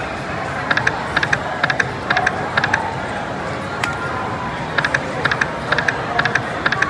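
Video slot machine's reels stopping one after another, each landing with a short clicking chime, about two a second. This happens twice, five stops each time, one spin after another, over a steady casino hubbub of voices and machine music.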